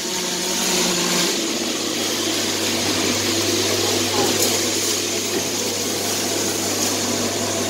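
Steady drone of workshop machinery in a metal fabrication shop: an even hiss with a low hum underneath.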